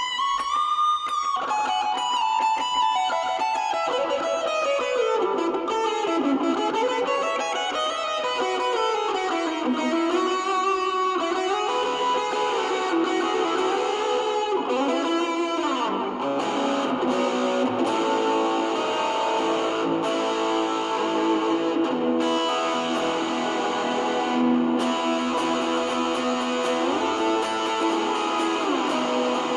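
Electric guitar played through distortion and overdrive with hall reverb and a Strymon Brigadier delay. Single-note lead lines with bends and slides in the first half give way to fuller, sustained notes about halfway through.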